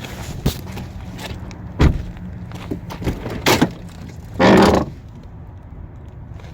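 Knocks and thuds from a car's doors and interior being handled: a few sharp knocks, then a louder short rushing thud about four and a half seconds in.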